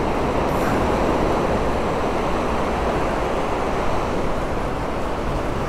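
Strong wind buffeting the microphone over the rush of surf breaking on the shore, a steady noise with no letup.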